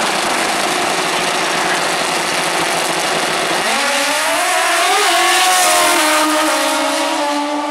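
Two drag-racing motorcycles running at the starting line, then launching about halfway through, their engine pitch climbing hard with two quick drops at the gear changes as they accelerate away down the strip.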